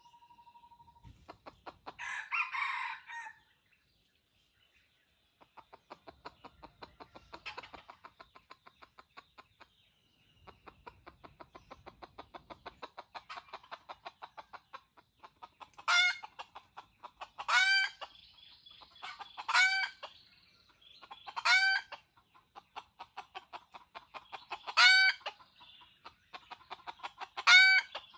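Red junglefowl (wild chicken) calling: a rough call a couple of seconds in, then from about halfway six short, loud, shrill calls roughly every two seconds. Underneath runs a fast, even patter of ticks.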